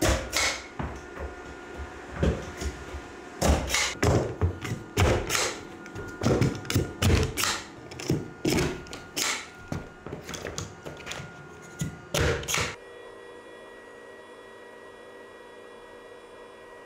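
A stand-up tube stapler drives staples into an OSB subfloor to tack down PEX radiant floor-heating tubing: a quick, uneven string of sharp thunks. The thunks stop about 13 seconds in, leaving a faint steady hum.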